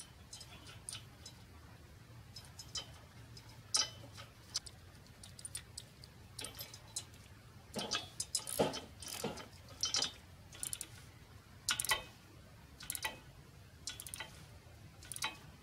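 Irregular metallic clicks and clinks from a steel nut, washer and bolt being fitted and turned with an adjustable (crescent) wrench on a steel cart's handle bracket.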